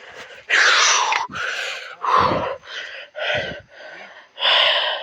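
A person's voice making breathy, wordless sounds like gasps and groans, in several separate bursts. The loudest is about half a second in and falls in pitch.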